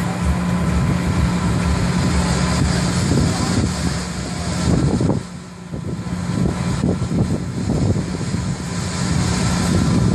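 Wind buffeting the microphone in uneven gusts, over a steady low hum, easing for a moment about halfway through.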